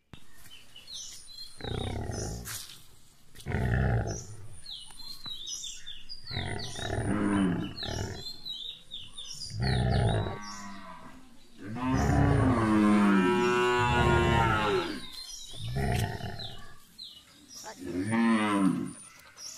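Cattle mooing, a series of loud calls a couple of seconds apart, the longest, about twelve seconds in, drawn out for some three seconds.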